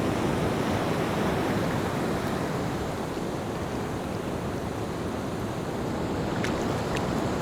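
Ocean surf: a steady wash of breaking waves, with the sound ebbing slightly in the middle and building again.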